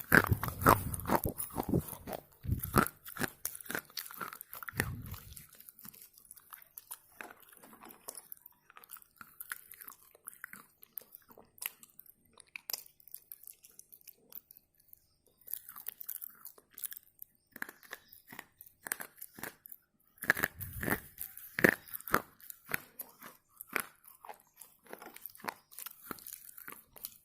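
Red slate pencil being bitten and chewed close to the microphone: crisp, brittle crunches. They are dense for the first few seconds, thin out to light chewing clicks, and come thick and loud again in the last third.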